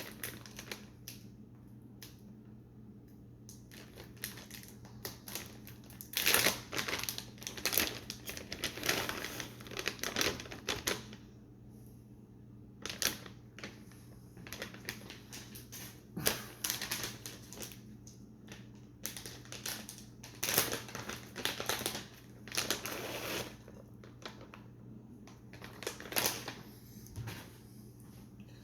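Hands kneading ground venison and pork with cheese in a bowl: irregular clusters of wet squishing and clicking, with short pauses between them.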